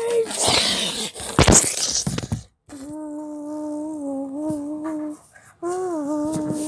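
A person's voice humming long, steady held notes, two of them in the second half with a short break between. Before that comes a loud rush of rustling, handling noise with a sharp knock about one and a half seconds in.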